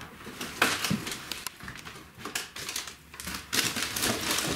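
Footsteps scuffing and crunching across a floor littered with paper, cardboard and debris, in irregular clicks and rustles that get busier near the end.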